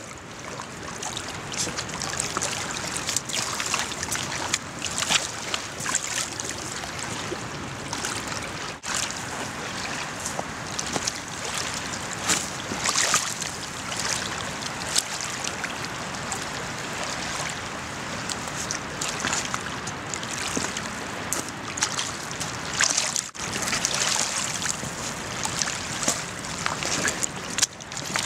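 Steady wash of water at a stony shore, with scattered sharp clicks and crunches of stones and gravel shifting underfoot and under a wooden beam being moved.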